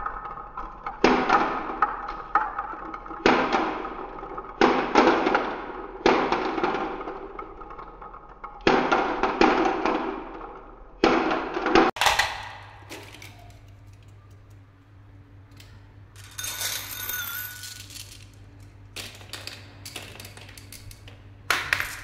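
Glass marbles rolling one after another down a wooden wave-shaped marble track, each roll ending in a clatter as the marble drops into a toy truck's bed full of marbles. The rolls come every couple of seconds for the first half, then thin out to quieter clinks.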